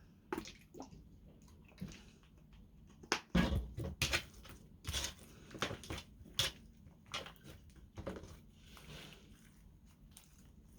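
Sticky clear slime being squished and stretched by hand: an irregular run of wet clicks and pops, loudest a few seconds in, thinning out near the end.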